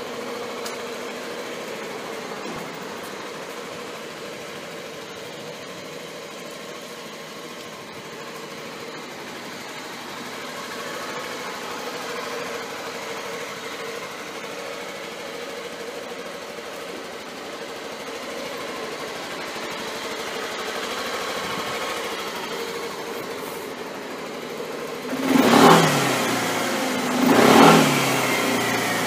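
Suzuki Skywave 250 Limited scooter's single-cylinder four-stroke engine idling steadily at the exhaust, then revved twice near the end in two short throttle blips that rise and fall back to idle.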